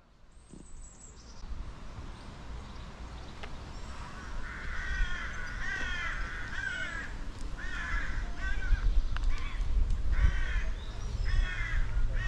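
Birds calling over and over in short, repeated calls, starting about four seconds in, over a steady low rumble.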